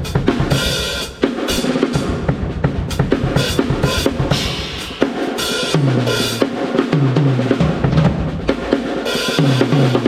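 Pearl Short Fuse drum kit played at full tilt: a busy groove on kick and snare with several cymbal crashes, and tom fills that run down from high to low toms a few times in the second half.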